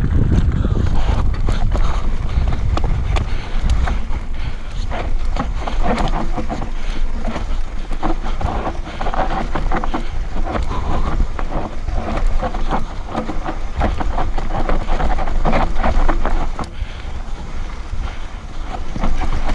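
Mountain bike descending a rough dirt trail at speed: tyres running over dirt and stones, with the chain and frame rattling in quick clicks and knocks over the bumps. Heavy wind rumble on the microphone underlies it.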